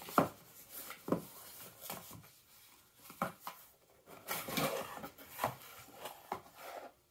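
Small cardboard box handled on a table: several short knocks and taps as it is turned over and set down, then a scraping rustle of cardboard about four seconds in as the lid flap is pulled open.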